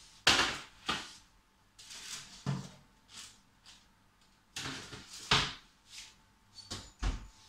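Metal baking trays knocking and clattering as they are pulled out of an oven and set down on the hob, in a series of sharp knocks. Near the end comes a heavier low thump as the oven door is shut.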